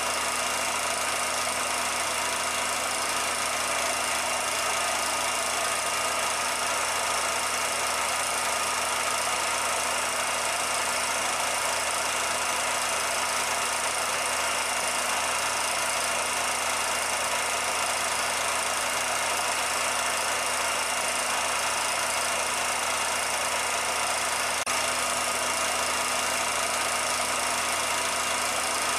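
Steady machine running noise, an even whirring hiss with a few constant hum tones. It does not change at all.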